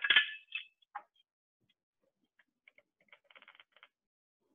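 Small handling noises from a spice jar of ground coriander being opened and measured out: a knock at the start, a click about a second in, then a quick run of faint ticks around three seconds in.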